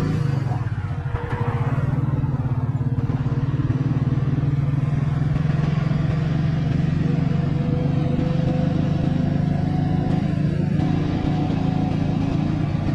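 Motorbike engine running steadily under way, heard from the rider's seat. A vehicle passes about a second in.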